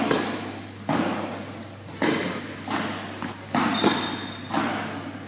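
Tennis balls struck by rackets and bouncing on an indoor court: about eight sharp hits, echoing in a large hall, with a few short high squeaks.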